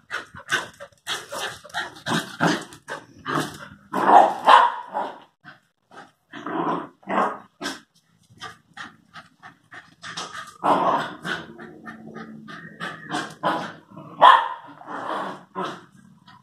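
An Airedale terrier and a Lakeland terrier play-fighting, barking and growling in quick, irregular short bursts, with louder barks about four, eleven and fourteen seconds in.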